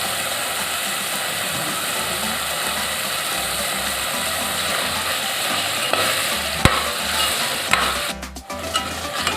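Minced chicken frying in hot oil and masala paste in a pot, giving a steady sizzle while it is stirred. A few sharp knocks come in the second half.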